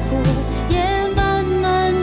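Chinese-language song: a sung melody over instrumental accompaniment with a slow, regular beat.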